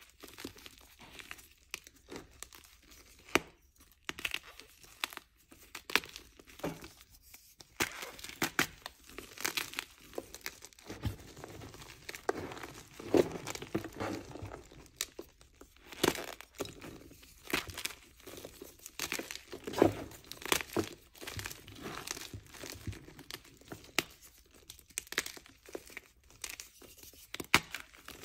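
Plain gym chalk blocks mixed with cornstarch being crushed and crumbled by hand: irregular crunches and crackles, with the squeaky give of packed cornstarch under the fingers.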